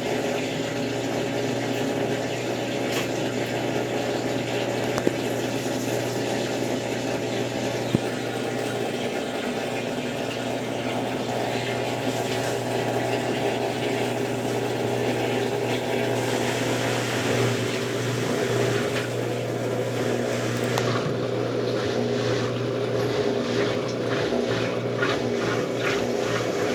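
Consul Facilite 10 kg washing machine in its wash stage: the motor runs steadily while water sloshes through a load of bedding and towels. The pattern shifts about two-thirds of the way in, with quick repeated swishes near the end.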